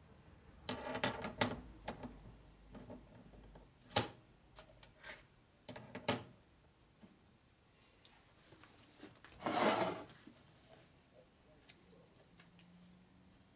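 Small steel transmission parts clinking and tapping as they are handled and fitted together by hand, in several clusters of light metallic clicks, some ringing briefly. A short scraping rustle comes about two-thirds of the way in.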